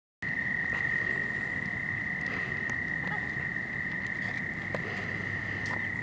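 A chorus of frogs trilling: one steady, high-pitched trill that cuts in abruptly just after the start and runs on without a break.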